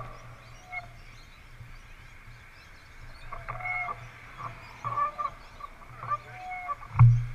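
Birds calling in short pitched chirps and squawks, a few in a row, over a steady low hum. A sharp knock at the very start and a louder thump near the end.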